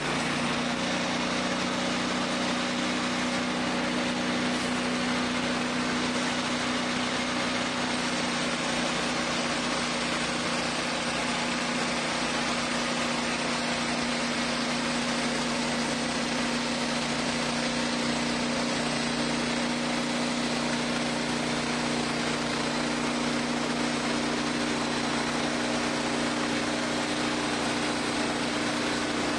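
Wood-Mizer bandsaw sawmill's engine running at a steady, unchanging pitch.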